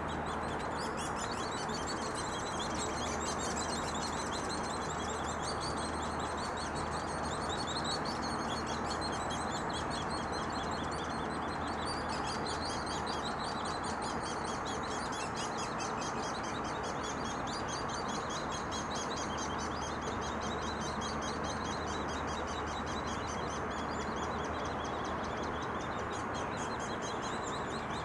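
Hairy woodpecker nestlings begging from inside the tree cavity: a continuous fast, high chatter of many short calls that never lets up.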